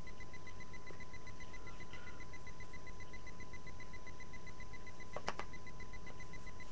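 Quiet room tone: steady recording hiss with a faint steady whine, and two or three quick clicks a little past five seconds in.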